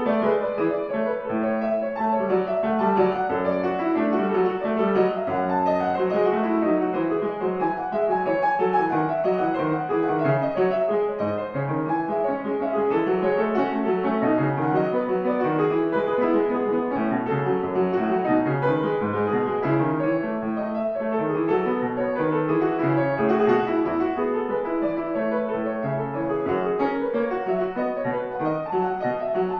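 Steinway Model D concert grand piano from 1900, 2.74 m long, being played in a continuous flowing passage of many notes. It has been rebuilt with a new German hammer set and keeps its original, untouched soundboard.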